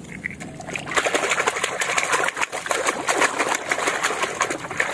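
Hand swishing and scrubbing a mud-caked toy car in a basin of muddy, foamy water: a busy run of splashing and sloshing that starts about a second in.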